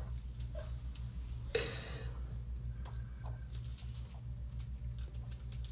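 Quiet pause with a steady low hum and faint scattered clicks, with one brief short sound about one and a half seconds in.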